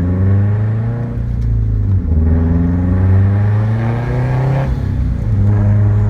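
2004 Subaru STI's turbocharged 2.5-litre flat-four accelerating through the gears: its pitch climbs, drops back at gear changes about one and two seconds in, climbs again, then levels off near the end.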